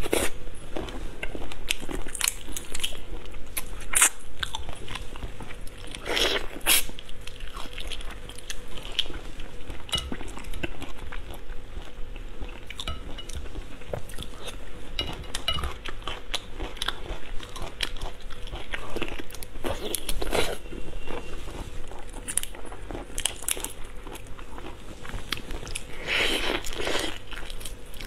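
Close-miked mouth sounds of a person eating soy-marinated shrimp: biting and chewing with many small wet clicks, and two longer, louder noises about six seconds in and near the end.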